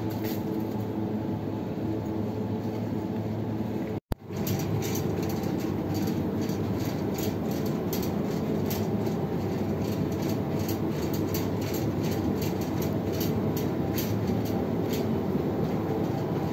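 Shopping trolley rolling over a tiled supermarket floor: a steady rattling rumble with frequent light clicks. It cuts out for an instant about four seconds in.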